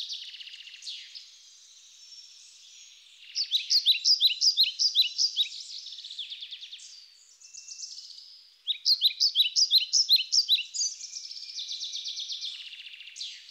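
Birdsong: a songbird sings two fast runs of repeated high notes, about five a second, one about three seconds in and one about nine seconds in, over a steady high chirping background.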